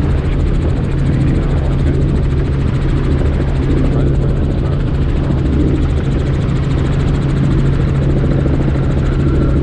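Helicopter cabin noise in flight: the steady drone of engine and rotors, with a strong low hum and a rapid, even rotor beat.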